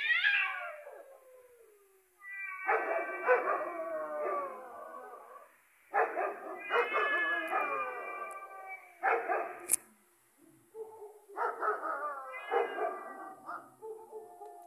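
Several dogs barking and howling in bouts of a few seconds each, loud enough to drown out the cats fighting. A single sharp click comes about ten seconds in.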